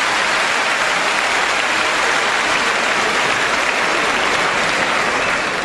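Crowd applauding steadily after a table tennis rally, easing off a little near the end.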